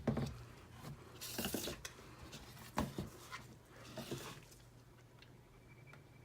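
Quiet handling of soap-making containers and utensils while batter is portioned out: a few light clicks and knocks and two short scraping noises, over a steady low hum.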